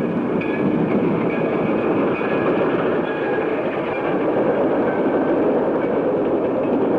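Train running, a steady rushing rumble of wheels and running gear, on an early-1930s film soundtrack.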